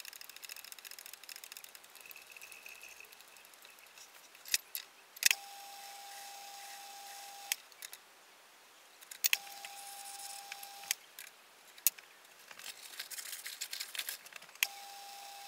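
Small metal clicks and rattles from a lathe chuck being worked by hand, its jaws set and tightened on a thin aluminium rod, with a few sharp clicks, the loudest about four and five seconds in. A faint steady whine starts and stops abruptly on a click three times.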